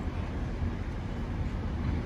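Freight train of hooded steel-coil wagons rolling past, its wheels on the rails making a steady low rumble.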